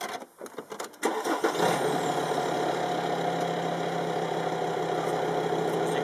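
Volkswagen Touareg heater blower fan motor, its worn brushes just replaced, switched on about a second in: it spins up quickly and runs with a steady hum and a rush of air, after a few handling clicks.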